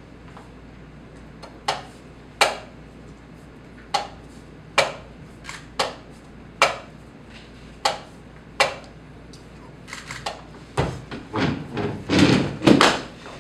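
Blitz chess: wooden chess pieces set down sharply on the board, each followed less than a second later by a slap on the chess clock, four moves in quick succession. Near the end comes a flurry of knocks and shuffling.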